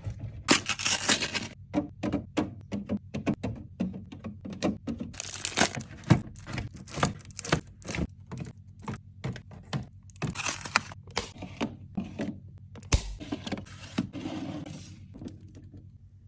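Plastic snack packaging crinkling and tearing, with many quick clicks and knocks of items being handled and set down, over a steady low hum; the handling dies away near the end.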